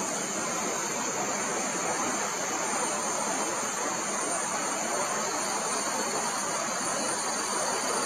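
Steady tropical forest ambience: a constant high insect drone over an even rushing hiss, with no distinct events.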